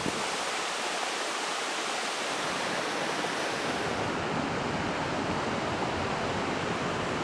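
Waterfall rushing close by: a steady hiss of falling water.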